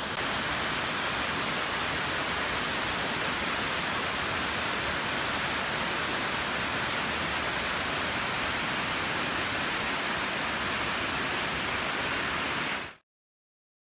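Waterfall rushing: a loud, steady noise of falling water that fades out quickly near the end.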